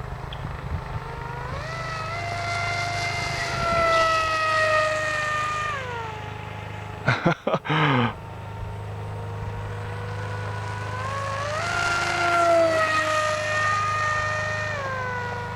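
Electric motor and propeller of an AXN Floater Jet RC plane whining in flight, throttled up twice: each time the pitch rises, holds for a few seconds, then drops back. A brief loud burst of sound comes about seven seconds in, between the two throttle runs.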